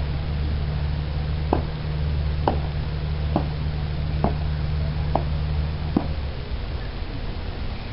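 Six short, sharp knocks at an even, slow pace, about one a second, over a steady low hum that stops about six seconds in.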